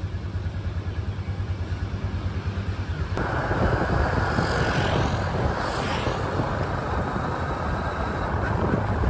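A motorcycle engine running with a low pulsing hum. About three seconds in, loud wind rush on the microphone joins it, as the bike rides along the road.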